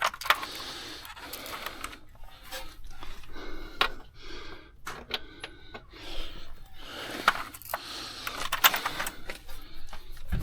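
Hand-tool work under a car's hood: scattered metal clinks and scrapes, with a brief run of rapid clicking about halfway through.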